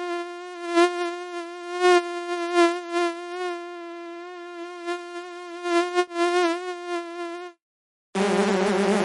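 Mosquito buzzing in flight: a steady high whine that wavers slightly in pitch and swells louder now and then. It cuts off suddenly about a second and a half before the end, and after a brief gap a different, denser buzzing sound starts.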